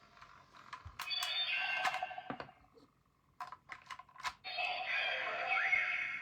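Memorial Edition Blazar Brace transformation toy playing electronic sound effects through its small speaker, broken up by several sharp plastic clicks of its buttons being pressed. The clicks come about a second in, around two seconds in and in a quick cluster near the middle, and a longer effect sound plays near the end.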